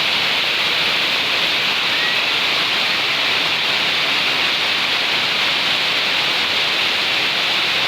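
Very heavy rain pouring down, a dense steady hiss with no letup.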